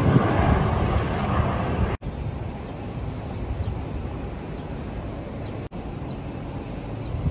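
Outdoor airport ambience: a steady rushing noise with a low rumble, louder for the first two seconds, then dropping off suddenly and running on more quietly.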